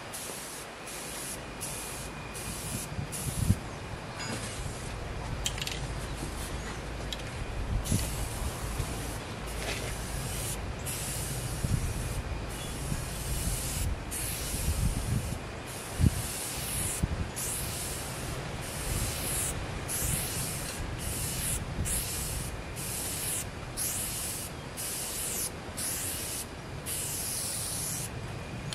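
Aerosol spray paint can hissing in many short bursts with brief pauses between, the pauses coming more often in the second half, over a steady low rumble.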